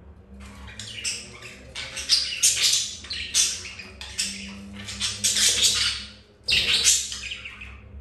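Budgerigars chattering in a dense, rapid run of chirps and scratchy notes, with a brief break just after six seconds in.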